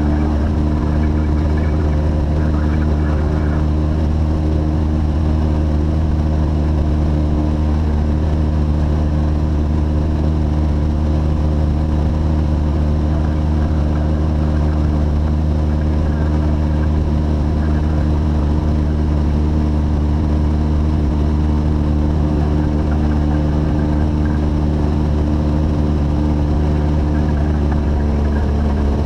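Light aircraft's engine and propeller droning steadily in level cruise: an even, unchanging hum made of several steady low tones.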